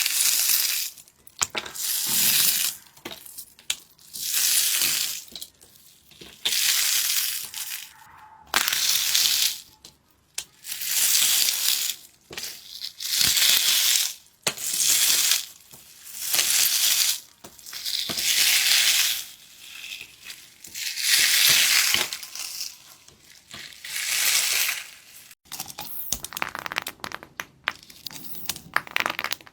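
Repeated crushing, crunching strokes, each about a second long and coming roughly every two seconds. Near the end they give way to a quick scatter of small clicks and crackles.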